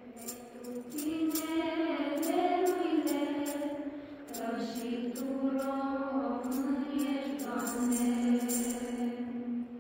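A group of women and children singing a Romanian Christmas carol (colindă) together in two long phrases. A rhythmic jingling beat runs under the singing and stops near the end.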